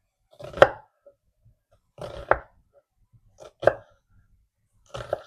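Kitchen knife slicing through an onion into the cutting board: four separate cuts, each a short slicing scrape ending in a sharp knock on the board.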